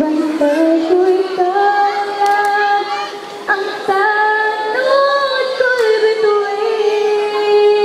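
A girl singing into a microphone in long held notes, the pitch sliding slowly upward over the first two seconds and then holding.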